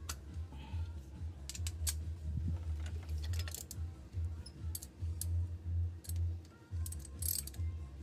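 Scattered metallic clicks and clinks of a socket wrench and hand tools being worked at the spark plugs of a Toyota 4A-F 16-valve engine, over a steady low hum.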